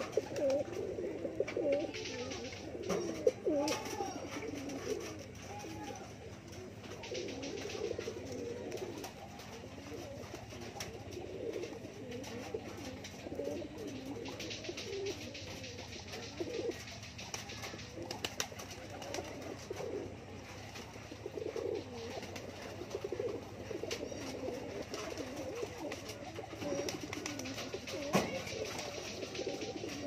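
A flock of domestic pigeons cooing continuously in low, wavering calls, with a few sharp taps among them.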